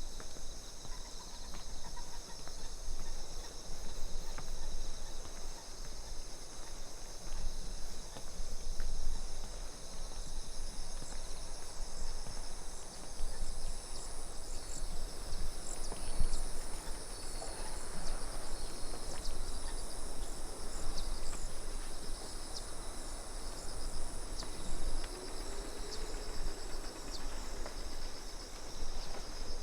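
A steady chorus of insects chirring high-pitched, over a low rustle of outdoor background noise.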